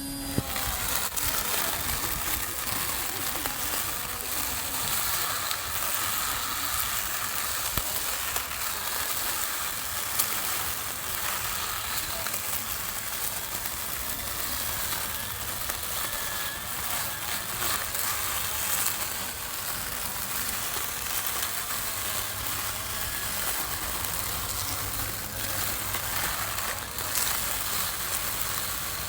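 Small lawn mower running steadily as it cuts grass, a continuous whirring hiss with a low hum underneath and a few brief clicks.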